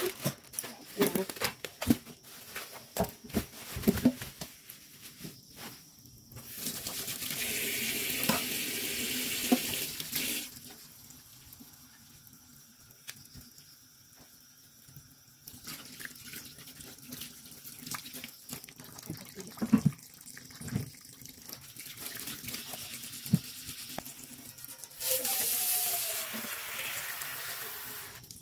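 Water running from a tap into a sink in two spells of about four seconds each, the second near the end. Short knocks and clatter of handling come in between.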